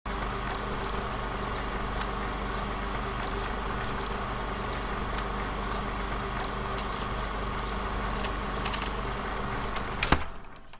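A steady mechanical rumble with a constant hum and scattered light clicks, ending in a sharp thump about ten seconds in and then cutting off quickly.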